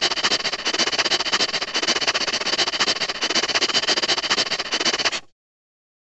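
Cartoon sound effect: a dense, rapid clicking rattle that runs steadily and cuts off abruptly about five seconds in.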